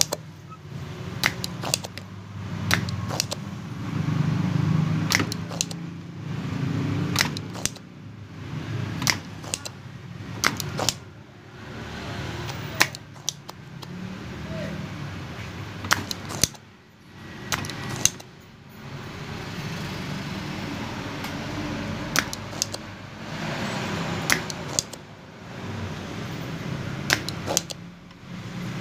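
Irregular sharp clicks and taps of tools and handling on a mixer's circuit board during desoldering work, over a low, uneven background rumble.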